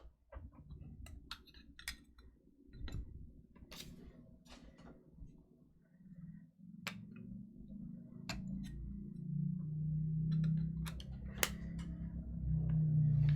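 Scattered light clicks and taps of trading cards and plastic card holders being handled on a table. From about halfway through, a low steady hum grows louder underneath.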